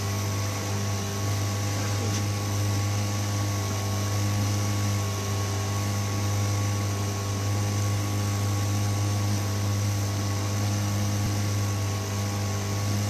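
Small outboard motor running steadily under way, a constant engine hum over a steady hiss.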